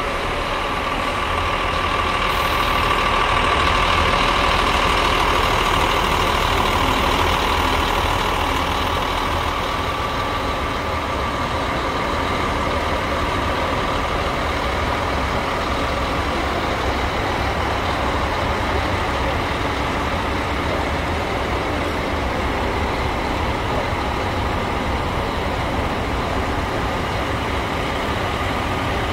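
Diesel coach engine idling steadily, with a steady whine on top that is loudest in the first several seconds and then settles.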